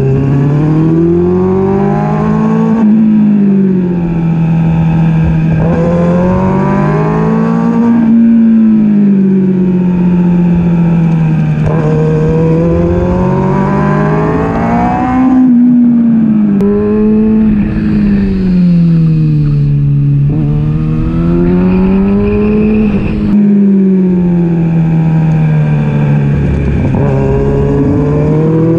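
A Kawasaki ZX-6R's inline-four engine at race pace, heard from onboard the bike. The revs climb and then drop back again and again, every few seconds, through shifts and corner entries, over a steady rush of wind noise.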